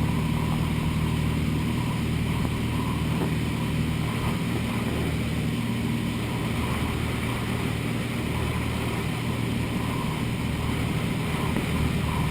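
Light aircraft's piston engine and propeller running steadily in flight, heard from inside the cabin.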